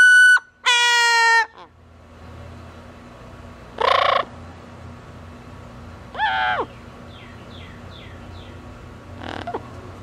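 Double yellow-headed amazon parrot calling: two drawn-out, even-pitched calls in the first second and a half, a harsh squawk about four seconds in, a falling call a little after six seconds, then a few faint short chirps and a brief squawk near the end.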